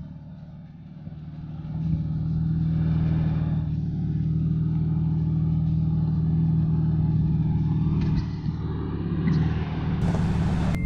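Lifted Honda Ridgeline's 3.5-litre V6 pulling under load as the truck crawls up a rock ledge. The engine note rises about two seconds in and then holds steady.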